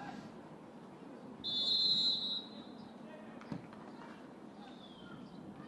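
Referee's whistle blown once, a shrill steady blast about a second long, starting about a second and a half in. A fainter, falling whistle follows near the end, over faint outdoor voices.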